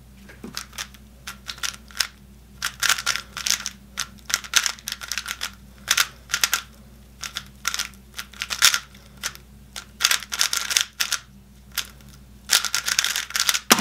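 A non-magnetic GTS3 3x3 speedcube being turned fast in a timed solve: rapid runs of plastic clicking and clacking with short pauses between them, the puzzle kind of loud. At the very end comes a sharp slap as the hands come down on the timer to stop it.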